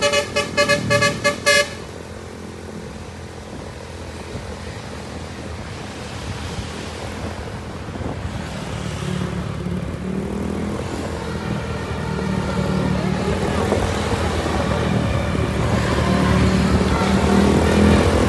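A bus's telolet multi-tone horn plays a quick melody of stepped notes that cuts off about a second and a half in. Then a bus engine and road noise rumble on, growing steadily louder as it comes closer.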